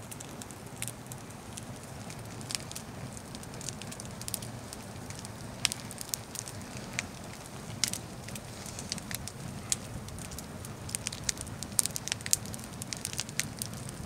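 Wood campfire in a stone ring crackling, with irregular sharp pops that come thicker in the last few seconds.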